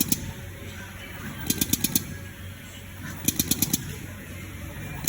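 Automatic silicone dispensing machine working. Quick runs of sharp mechanical clicks, each about half a second long, come twice at even intervals of just under two seconds, over a steady low hum.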